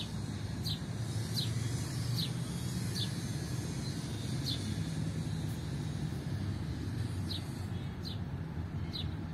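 Steady low rumble of distant road traffic, with a small bird repeatedly giving short, high, downward-sliding chirps, fewer of them in the middle.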